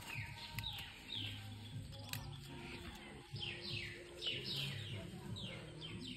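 Faint bird chirps: short, quick notes that fall in pitch, coming in rapid runs that grow busier in the second half, over a low background hum.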